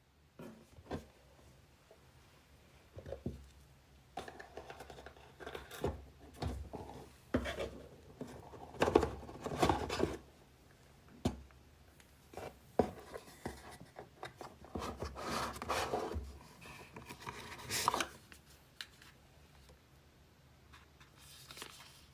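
Paper and cardboard packaging being handled and opened by hand: irregular rustling and scraping with short taps and clicks, the busiest stretch in the middle.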